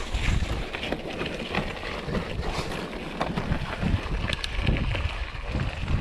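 Mountain bike rolling over a loose gravel and rock dirt trail: uneven wind rumble on the microphone, with scattered clicks and rattles from the tyres and bike.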